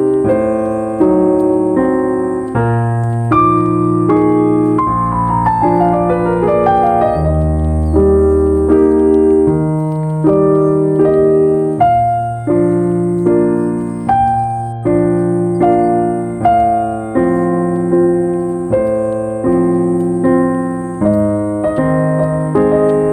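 Slow solo piano music, a new note or chord about every second, with a quick falling run of notes about five seconds in.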